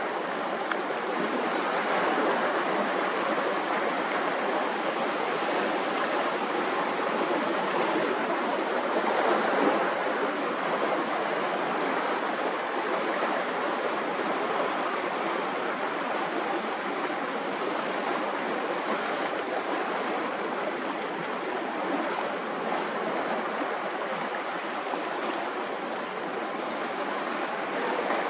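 Steady rush of small waves washing on the shore, swelling slightly about ten seconds in.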